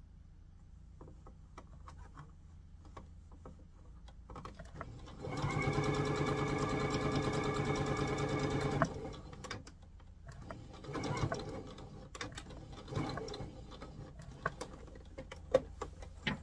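Electric household sewing machine stitching: one steady run of about three and a half seconds, then a couple of short bursts, with a few sharp clicks near the end.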